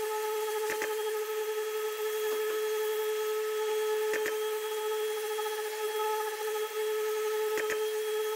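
Random orbital sander with P240 abrasive running steadily, flattening key-scratches in a car's painted bodywork. A short double click comes about every three and a half seconds.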